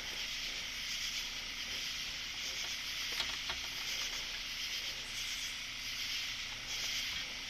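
Steady, high-pitched chorus of night insects, with a couple of faint clicks about three seconds in.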